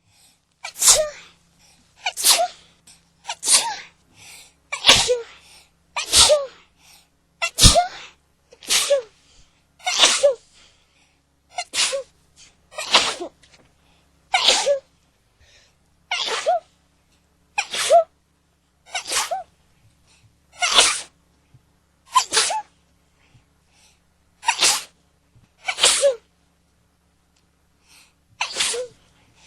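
A person sneezing over and over in a long fit: about nineteen sneezes, one every second or two, each short and sharp with a brief pitched cry in it, and short pauses between.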